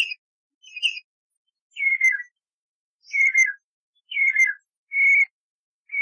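Common redshank (Tringa totanus) giving a series of about six clear whistled calls, roughly one a second. The first are short; the later ones are longer, and several drop in pitch at the end.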